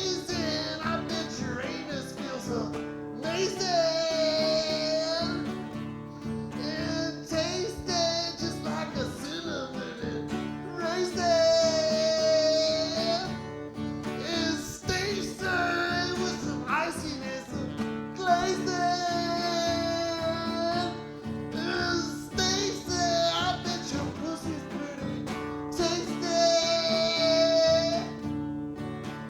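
A voice singing long, drawn-out notes with vibrato, a held note every few seconds, over steady guitar accompaniment.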